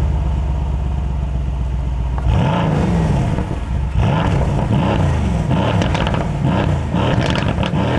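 Mercedes-AMG C63 Estate's 4.0-litre biturbo V8 idling steadily, then from about two seconds in revved in a run of quick throttle blips, the pitch rising and falling roughly every two-thirds of a second.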